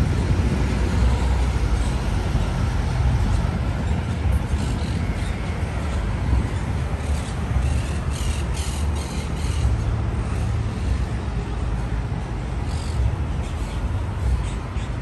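Steady city street noise of passing traffic.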